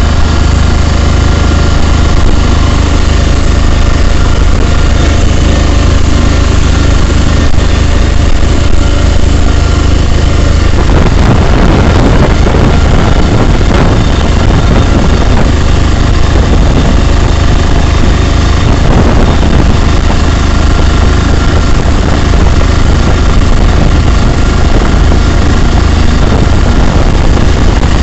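Engine of a vehicle driving at steady speed, heard loud from inside its cab as a deep steady hum with road noise. About eleven seconds in, a rougher rushing noise joins it.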